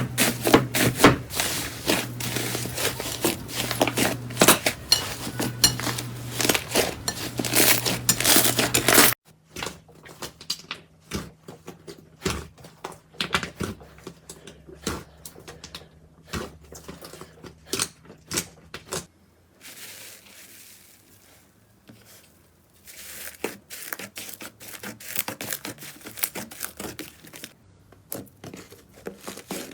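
Slime being squeezed, poked and stretched, giving dense crackling and popping clicks. About nine seconds in, a cut leads to a quieter stretch of sparser pops that grows busier again near the end.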